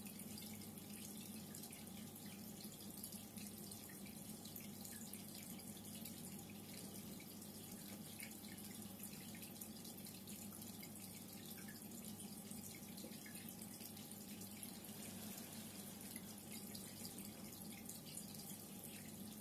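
Reef aquarium water circulating: a steady fine trickle and fizz of water and small bubbles over a low, even pump hum.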